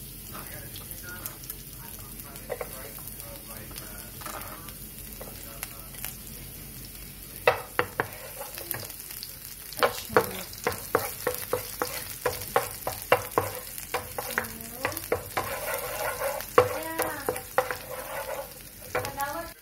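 Chopped garlic sizzling in hot oil in a nonstick frying pan. From about a third of the way in, a spatula stirs it with quick clicks and scrapes against the pan.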